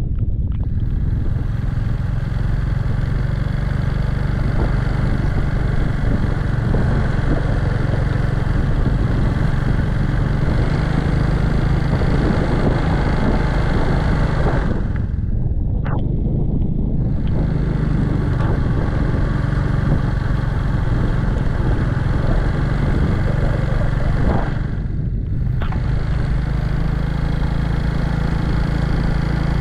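A vehicle's engine runs steadily while moving along the road, a low hum mixed with road and wind noise. The higher hiss drops away briefly twice, about halfway through and again a few seconds before the end.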